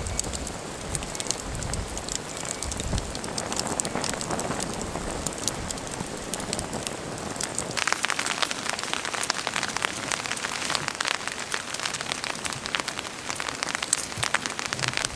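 Rain pattering on a surface: a steady hiss of many small drop ticks, which thicken into a denser patter about eight seconds in.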